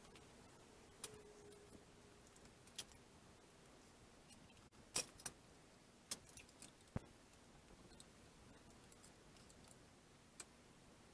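Near silence with faint room tone, broken by scattered short, sharp clicks and knocks. The loudest is a quick pair about five seconds in, with a duller knock about two seconds later.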